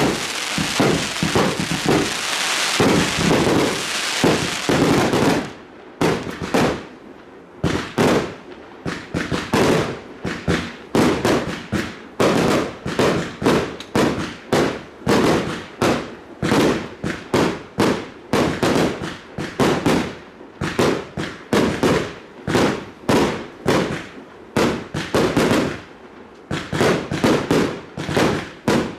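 Fireworks firing: a dense mass of crackling and bangs for the first five seconds, then a steady rapid run of separate shots at about two a second, each with a short echoing tail.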